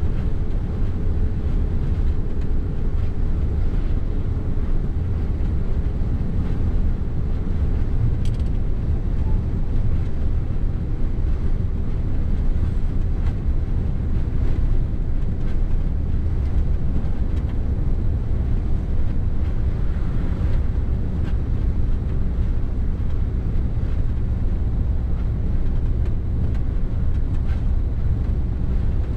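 Mercedes Actros truck cruising at steady motorway speed, heard from inside the cab: an even, steady low drone of engine and tyre noise.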